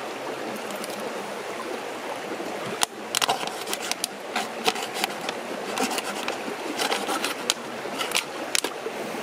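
Steady babble of a small forest stream, with sharp crackling and clicking from about three seconds in as a thin plastic drinks bottle is cut open with a knife.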